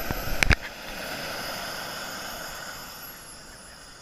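Falcon 120 model jet's gas turbine at full power on its takeoff roll: a thin high whine over a steady rush of exhaust, the whine sliding slowly down in pitch and the whole sound fading as the jet pulls away. Two sharp buffets hit the microphone about half a second in.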